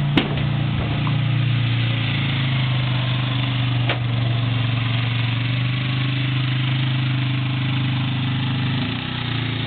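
Quad ATV engine running at a steady pace as the four-wheeler rides past; the engine note drops slightly near the end.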